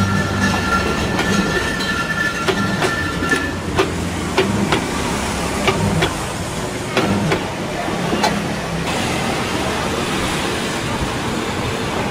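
Coin-operated washing machine running, with a steady mechanical noise and irregular clicks and knocks. A rushing hiss like water filling the drum grows stronger near the end.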